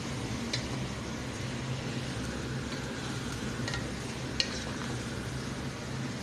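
Wooden spatula stirring raw chicken pieces through tomatoes and onions in a pot, with a light sizzle from the hot pan and three sharp knocks of the spatula against the pot, the loudest a little past the middle.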